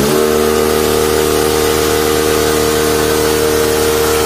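A motor engine revs up and then holds a steady pitch, over the hiss of heavy rain.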